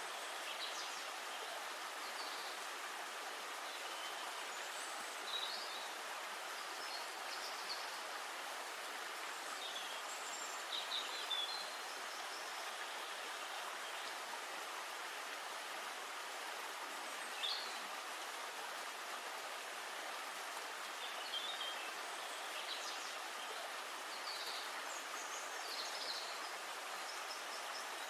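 Forest ambience: a steady hiss with short, high bird chirps scattered throughout, a few at a time.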